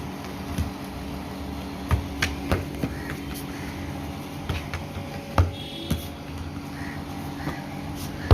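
Steady mechanical hum in a small room, with scattered short clicks and knocks.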